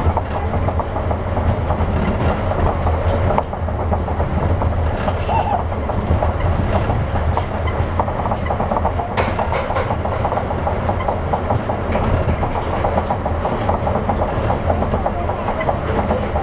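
Running sound inside a 200 series New Tram, a rubber-tyred automated guideway train, moving between stations. It is a steady, loud rolling noise with a heavy low hum and a dense rattle of clicks, and a few sharper clicks.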